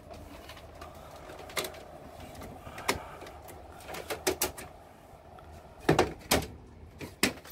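Wall-mounted split air conditioner's indoor unit blowing air with a steady hiss. Scattered sharp clicks and knocks sound over it, the loudest pair about six seconds in.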